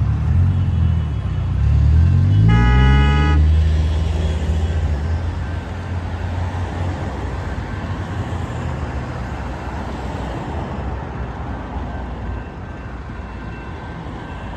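Road vehicle engines: one revs up with a rising pitch, then a single horn blast of about a second sounds, followed by a steady low engine rumble that slowly fades.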